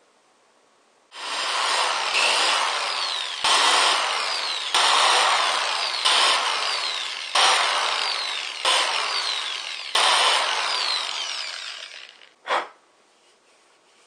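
Corded electric drill boring small holes through a rubber plunger cup, about seven in a row, each new hole starting with a jump in loudness and the motor's whine falling in pitch as the bit bites. The drill stops about twelve seconds in, followed by one short final burst.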